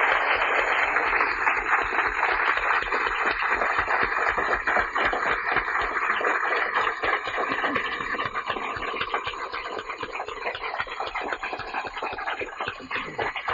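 A large audience applauding steadily, with many hands clapping at once. The applause grows quieter after about eight seconds.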